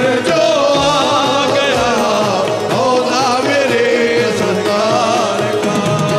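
Live qawwali ensemble music: harmonium and keyboard melody with wavy ornamented runs over steady held notes and dholak drumming.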